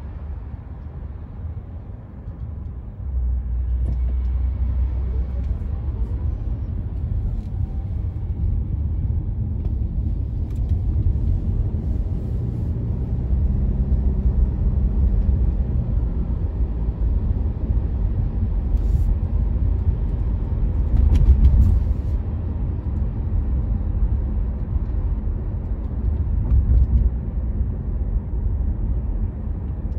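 Car driving on a road: a steady low rumble of engine and tyres that gets louder about three seconds in, with a brief swell about two-thirds of the way through.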